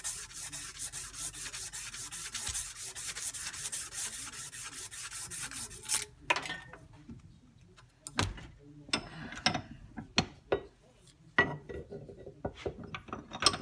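A strip of 180-grit sandpaper is worked rapidly back and forth around the crankshaft journal of a Tecumseh 8 HP Snow King engine, rubbing out the scoring. The rubbing stops abruptly about six seconds in. Scattered metal clicks and knocks follow as the crankshaft is handled and turned in the vise.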